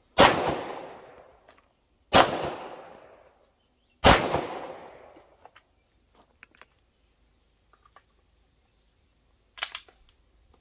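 Three 9mm CZ pistol shots, about two seconds apart, each with a long echoing tail across the open range. A short, faint clatter comes near the end.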